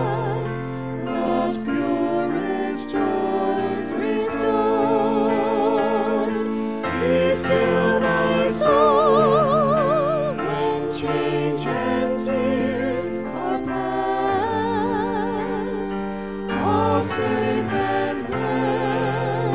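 Worship music: a hymn sung by several voices holding long notes with vibrato over a sustained instrumental accompaniment.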